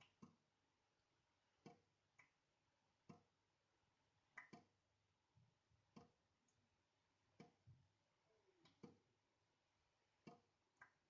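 Water dripping from a leaky tap into a sink: a sharp drop about every second and a half, often followed by a softer second plink, faint but clear.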